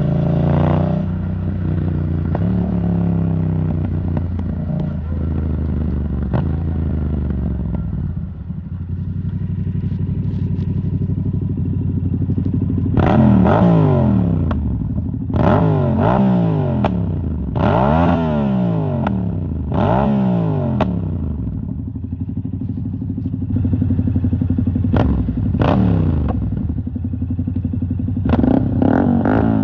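Yamaha MT-07's parallel-twin engine through an Arrow Thunder titanium exhaust, under way: the engine note falls at first and runs low and steady. Just before halfway it revs up and drops back in four quick surges, and twice more near the end.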